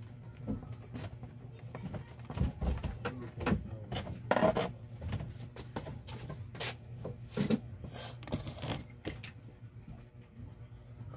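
Handling noise on a wooden workbench: scattered knocks and clicks as a corded electric drill is moved about and a screwdriver is laid down, over a steady low hum. The loudest knocks come in the middle.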